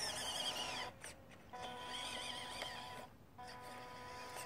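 WPL B-16 6x6 RC truck's electric motor and metal drivetrain gears whining as it drives, the high whine wavering in pitch with the throttle. It cuts out briefly about a second in and again about three seconds in.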